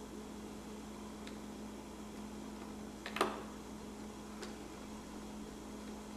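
Faint clicks of small parts and connectors being handled inside an opened iMac, with one louder click and rattle about three seconds in, over a steady low hum.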